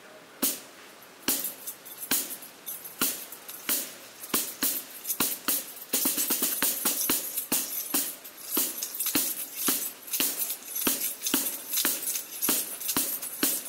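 Punches landing on a homemade punching bag of taped plastic tubs around a roll of chain-link fence: a few single blows at first, then rapid strings of punches from about six seconds in.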